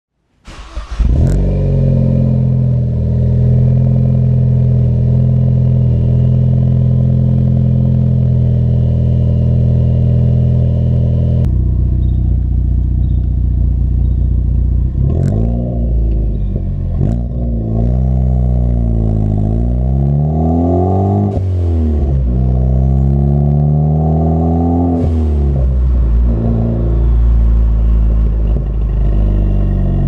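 Ford Focus ST's turbocharged four-cylinder through an MBRP cat-back exhaust, recorded close to the tailpipes. It idles steadily at first, then after a cut it pulls away under normal acceleration: the exhaust note rises in pitch through a gear, drops at the shift, and rises again.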